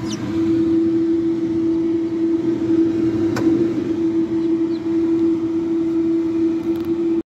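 A steady mechanical hum holding one pitch over a rough noisy bed, with a single sharp click about three and a half seconds in; it cuts off suddenly near the end.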